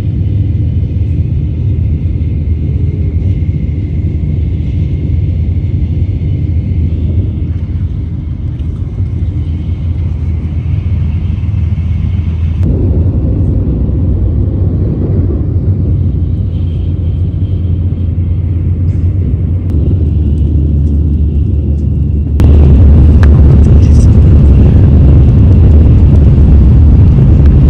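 Steady low rumble of a train running, heard from on board. It shifts abruptly about 13 seconds in and grows louder near the end.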